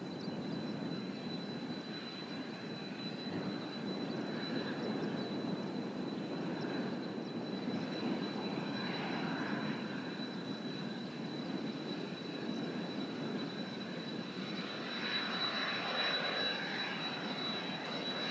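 Kawasaki T-4 jet trainers' turbofan engines running steadily: a continuous rushing jet noise with a thin high whine held throughout, growing a little louder near the end.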